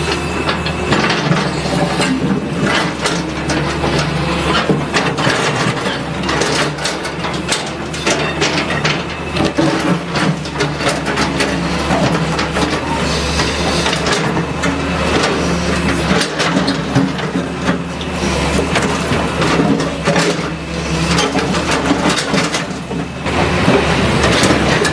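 Crawler excavator's diesel engine running steadily, with irregular crunching and clattering of broken brick and concrete as the bucket digs into and drops the rubble.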